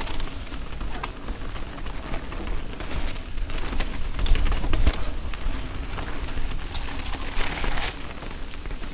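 Canyon Strive mountain bike descending a dirt trail: tyres rolling over dirt and leaves, with the bike's chain and parts rattling in quick clicks and knocks, and wind rumbling on the camera microphone. A louder knock comes about five seconds in.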